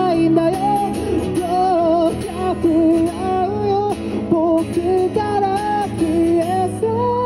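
A man singing an original pop ballad into a microphone, accompanied by his own strummed acoustic guitar; the melody line moves continuously with slight vibrato on held notes.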